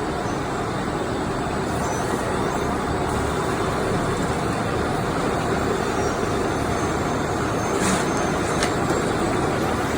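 Steady mechanical noise, a low rumble under a hiss, like an engine or machinery running. A brief higher rattle comes about eight seconds in.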